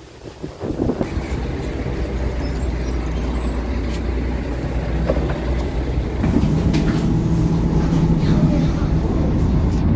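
A city bus's engine running close by while the bus stands at the stop. About six seconds in, a louder, steady engine hum sets in, heard from inside the bus.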